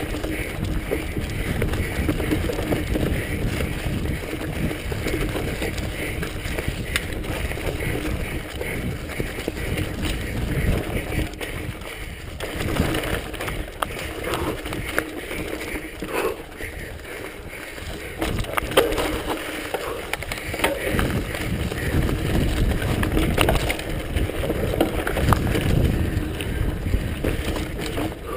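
Mountain bike ridden fast over a dirt forest trail: the tyres rumbling on the ground and the bike rattling and knocking over bumps and roots.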